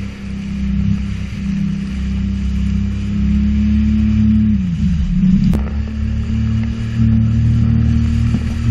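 Sea-Doo jet ski engine running at a steady speed. About five seconds in, its note dips and wavers briefly, with one sharp knock, then steadies again.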